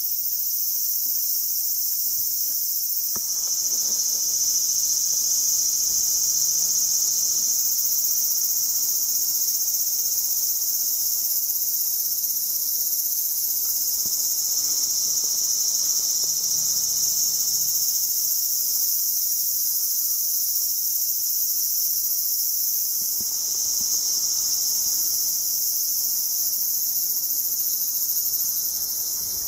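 Loud chorus of cicadas, a steady high-pitched buzzing that swells slightly a few seconds in.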